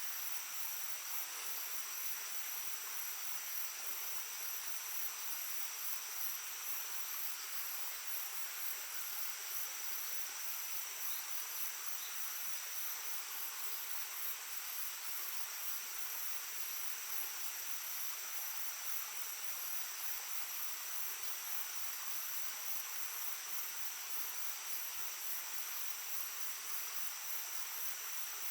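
Shallow stream babbling steadily, with a chorus of insects over it: constant high-pitched trilling and a fast, even pulsing still higher.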